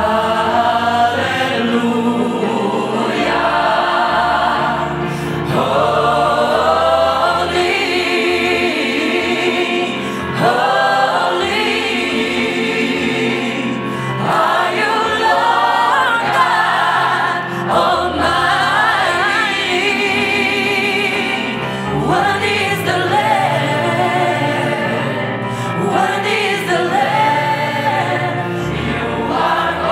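A female solo singer on a microphone singing with a large choir joining in behind her.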